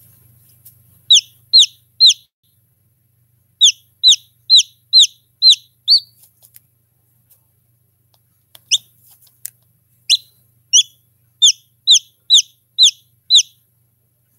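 A hatching chick peeping from inside its pipped egg: short, high, downward-sliding peeps in runs, two to three a second, with pauses of a second or two between the runs.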